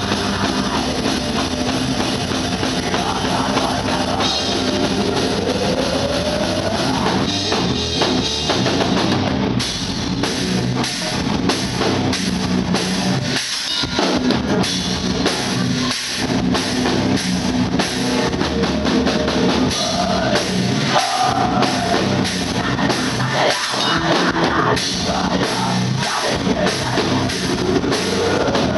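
Heavy metal band playing live: electric guitars over a drum kit with bass drum and cymbals. The music breaks off for an instant several times in the middle.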